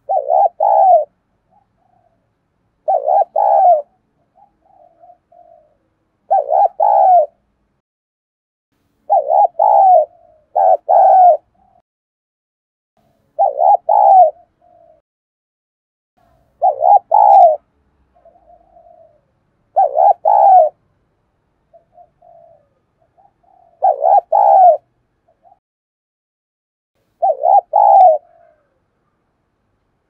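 Spotted dove cooing close by: a loud, low coo phrase repeated about every three seconds, around ten times, with faint short notes between phrases. It is a decoy bird's calling song, used to lure and provoke wild spotted doves.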